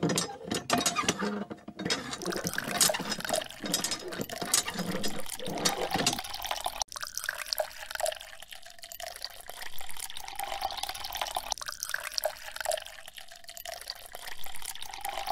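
Thin stream of water pouring from a miniature plastic hand pump's spout and splashing into a sand furrow. For the first six seconds the sound is rougher, with the pump's lever being worked by hand; after that only the pouring and trickling water goes on.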